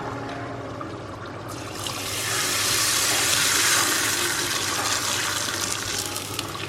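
Tapioca appalam frying in oil that is not yet hot enough, sizzling: a hiss that swells about a second and a half in and eases off toward the end.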